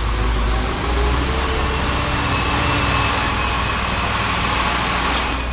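Heavy truck engine idling steadily, a constant low rumble.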